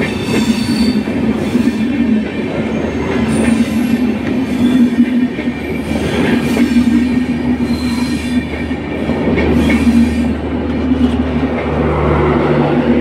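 LHB passenger coaches rolling past at close range: a loud steady rumble of wheels on rail, with thin squeals from the wheels now and then. Near the end a steady low hum joins in as the power car with its diesel generator passes.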